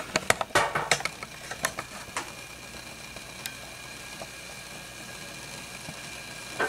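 Kitchen background: a run of sharp clicks and knocks in the first two seconds, then a steady low hum and hiss with a faint high whine and an occasional click.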